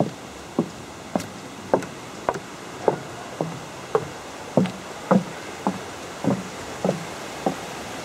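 Footsteps on the planks of a wooden boardwalk: hollow wooden knocks at a steady walking pace, a little under two steps a second.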